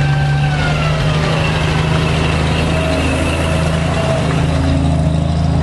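Engine of a World War II US Army truck running steadily at low speed as it passes close by, a loud even low hum.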